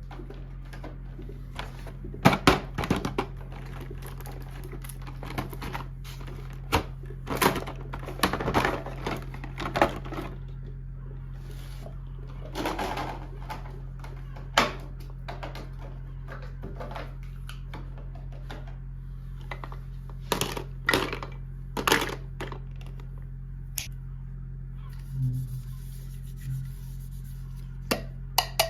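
Plastic toys and packaging being handled: irregular clicks, taps and crinkles, some in quick clusters, over a steady low hum.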